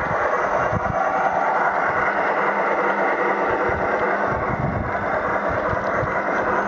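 Battery-powered Accucraft K27 model steam locomotive running fast along garden railway track. Its onboard Sierra sound system plays steam-locomotive sounds over the running noise of the train, with a steady low hum.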